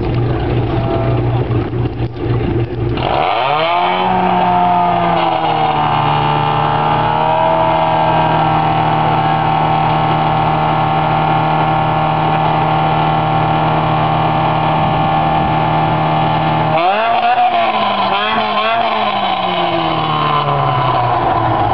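Modified MG F/TF sports car's four-cylinder engine revved through a loud aftermarket exhaust for a decibel test. It idles with a low rumble at first, then about three seconds in the revs climb and are held steady and high for some thirteen seconds. Near the end they drop sharply, are blipped a few times, and are held high again.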